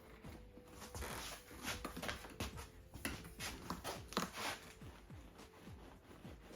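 Faint, irregular rustling and light taps of hands working a net over roots in a bonsai pot.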